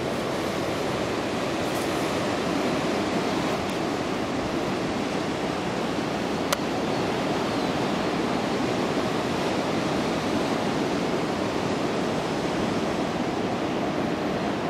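Ocean surf of about 3 to 4 ft breaking on a beach, heard as a steady, even rush of noise.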